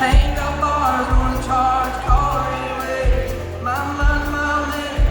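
Live country band playing, a kick drum and bass marking a beat about once a second under a bending melody line.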